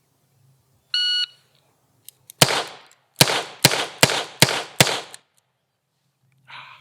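A shot-timer start beep, then six shots from a Smith & Wesson Model 66 revolver firing 148-grain .38 Special: the first about a second and a half after the beep, the other five in quick succession about 0.4 s apart.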